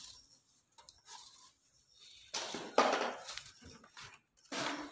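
Young kittens, about three to four weeks old, crying in a few short bursts, the loudest about three seconds in; the kittens are scared and starving.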